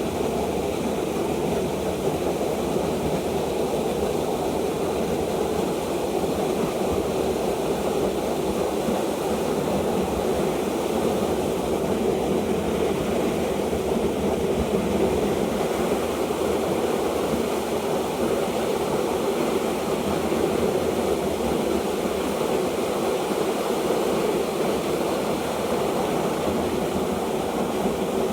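Steady rushing of a mountain stream, water pouring over rocks in a constant, even noise.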